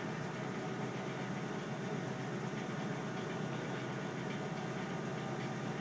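Steady machine hum with a hiss, even throughout.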